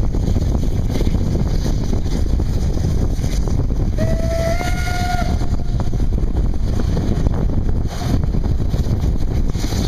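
Steam locomotive whistle giving one short blast of just over a second, stepping up slightly in pitch partway through. Behind it are the steady rumble of the narrow-gauge steam train running and wind buffeting the microphone at the open carriage window.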